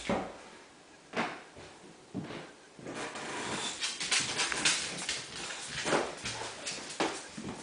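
An adult bulldog and a bulldog puppy playing: short breathy dog noises and scuffling, a few separate ones at first, then a busy run from about three seconds in.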